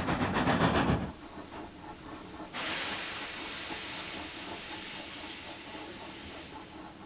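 Steam locomotive sound effects: fast, even chuffing that stops about a second in, then a sudden hiss of escaping steam from about two and a half seconds that fades away near the end.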